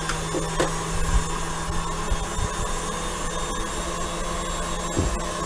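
Electric stand mixer running steadily, its whisk whipping chocolate whipped topping close to stiff peaks, with a few faint clicks.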